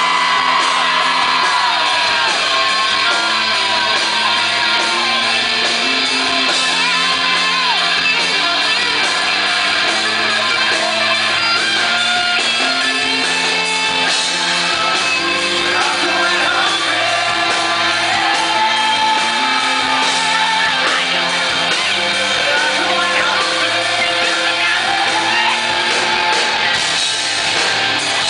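Loud live rock band: electric guitar, drums and a male voice singing a sustained melody.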